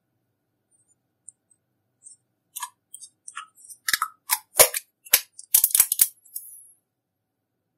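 Slime being squished and worked by hand, giving a run of sharp sticky clicks and pops. It starts sparse, grows denser and louder in the middle, then stops.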